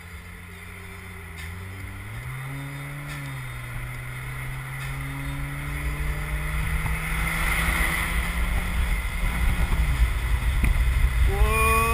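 Car engine pulling through the gears as the open-top convertible gathers speed: the engine note drops at a gear change about two seconds in, climbs slowly, then changes again near the end. Wind and road noise grow steadily louder as speed rises.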